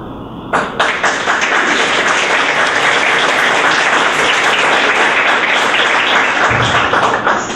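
Audience applauding: a room full of people clapping, starting about half a second in and stopping fairly sharply near the end.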